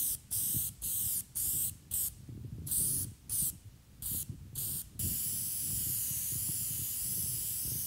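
Disposable Preval aerosol sprayer misting PVA (polyvinyl alcohol) release film onto fresh fiberglass laminate: a string of short hissing spurts, then one long steady spray from about five seconds in.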